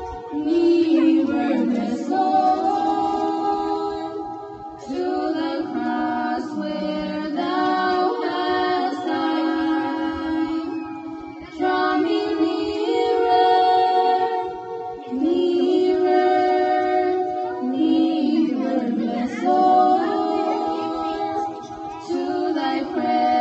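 Two women singing a hymn together into a microphone, unaccompanied, in long held phrases with short breaths between them.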